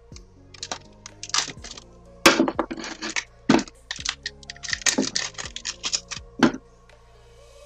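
Background music, with short scratchy bursts of adhesive tape being pulled from its roll and handled over it. The loudest bursts come about two seconds in and again near the end.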